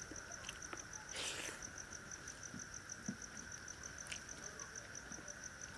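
Crickets chirping steadily in the background: a high, even trill pulsing about seven times a second over a steady lower insect drone. Faint soft clicks, and a brief rustle about a second in, come from a hand squeezing and mixing rice with fish curry on a clay plate.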